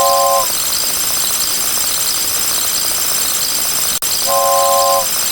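Toy train horn sounding a steady three-note chord in short-then-long toots: one long toot ends about half a second in, and another begins near the end, over a constant hiss with high wavering tones. A sharp click comes about four seconds in.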